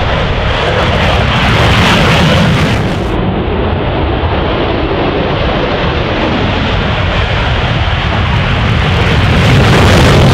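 F-16 fighter jet taking off, its single jet engine at full thrust: a loud, steady rushing noise that swells about two seconds in and again near the end.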